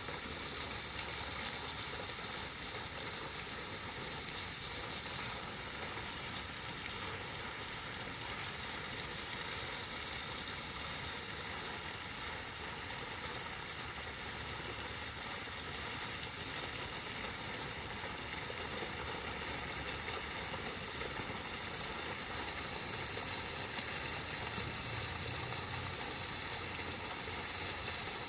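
Flowing water rushing steadily, an even hiss that barely changes.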